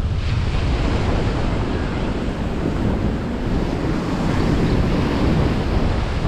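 Surf breaking in the shore break and foam washing up a sandy beach, with wind buffeting the microphone as a heavy low rumble.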